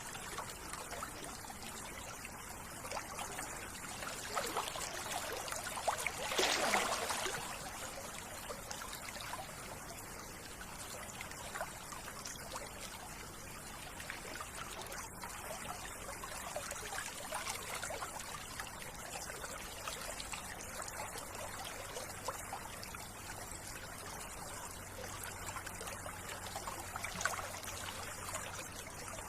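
Running water trickling and flowing steadily, like a small stream, growing briefly louder about six seconds in.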